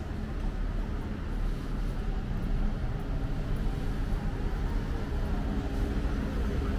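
City street ambience: a steady rumble of road traffic.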